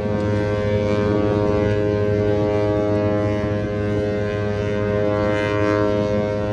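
A cruise ship's horn sounding one long, steady blast: a deep, low note rich in overtones that comes in suddenly.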